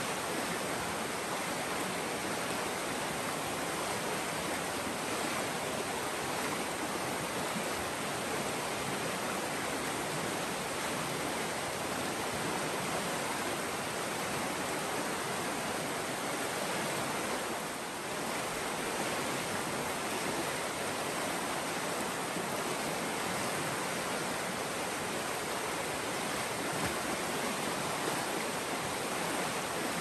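Nantahala River flowing: a steady, even rush of water, dipping slightly for a moment about two-thirds of the way through.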